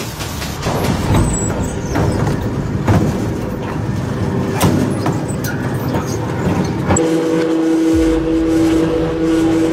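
Industrial shaft shredder grinding and crushing material between its toothed rotors, with several sharp cracks. About seven seconds in, the sound changes to a steady two-pitch machine hum.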